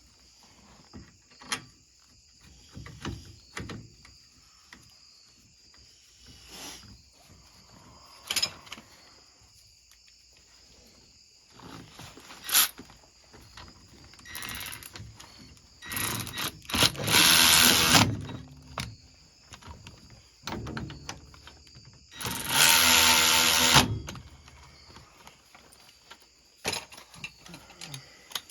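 A cordless power tool, drill or impact driver, runs in two bursts of about one and a half to two seconds, a little past halfway and again about three-quarters of the way through, running the brake bolts back in. Scattered clicks and clinks of tools and parts come between them.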